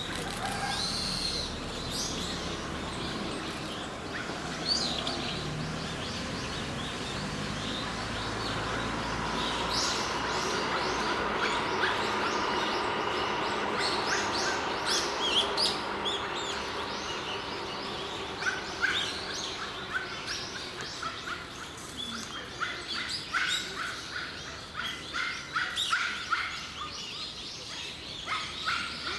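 Wild birds chirping: many short, high calls, coming more thickly in the second half, over steady background noise.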